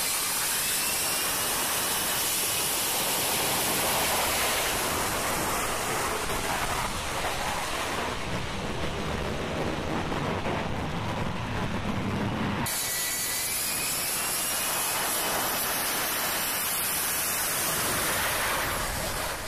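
F-35B Lightning II jet engine running loud on a carrier flight deck: a steady roar with a faint high whine that glides up and down in pitch. The sound changes abruptly about eight seconds in and again about twelve and a half seconds in.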